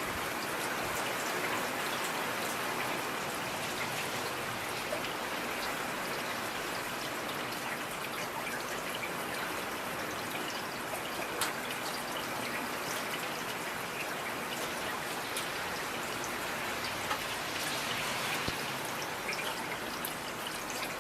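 Steady rain falling, a dense even hiss with individual drops ticking through it; no thunder.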